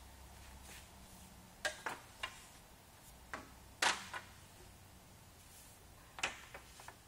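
Wooden trim pieces knocking and clacking against each other and against the saw's metal rack as they are handled and stacked: a string of separate sharp knocks, the loudest about four seconds in.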